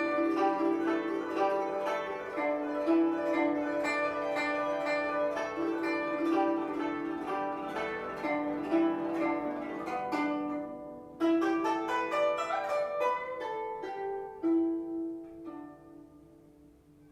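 Guzheng (Chinese plucked zither) music: a quick run of plucked notes with longer held notes in between. It breaks off briefly about ten seconds in, picks up again, then fades out near the end.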